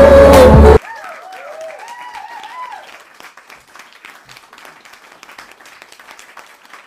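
Loud dance-pop music cuts off abruptly under a second in, and an audience applauds, with a few high cheers in the first couple of seconds; the clapping thins out and fades near the end.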